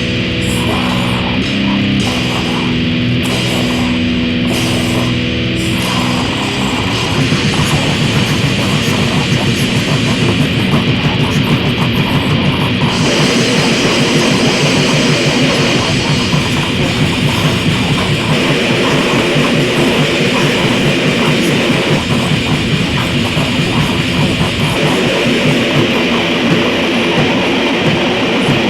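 Death grind / noise grind music: heavily distorted guitar holds chords for the first few seconds, then about six seconds in the full band breaks into a faster, denser, slightly louder section that carries on.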